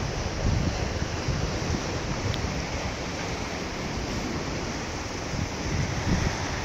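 Wind buffeting the microphone in uneven gusts over a steady wash of sea.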